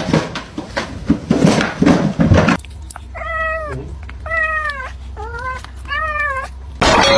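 A cat meowing four times, each meow rising and then falling in pitch, after a stretch of scratchy, scuffling noise. Loud music cuts in suddenly near the end.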